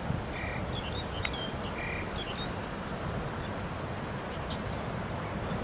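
Steady outdoor background noise with a low rumble, broken by a few short, high chirps in the first half.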